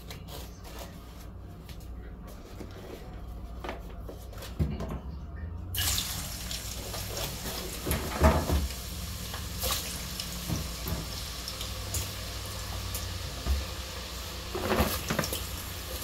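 French fries deep-frying in hot oil, a steady sizzle that comes up suddenly about six seconds in, with a few light knocks from foam plates being handled.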